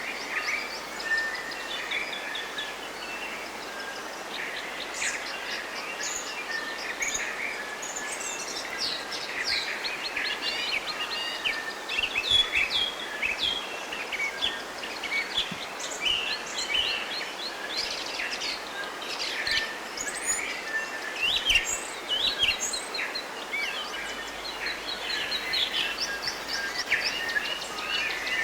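Many small birds chirping and trilling at once in a dense, overlapping chorus, over a steady low hiss of background noise.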